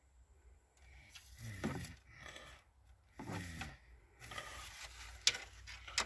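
Fresh engine oil glugging out of a plastic jug into the engine's oil filler neck, in two gulping pulses as air bubbles back into the jug. Two sharp clicks near the end.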